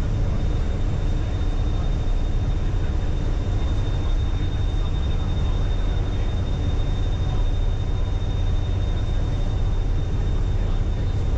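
Passenger hovercraft under way: its engines and propellers give a loud, steady low drone with a thin, steady high whine above it.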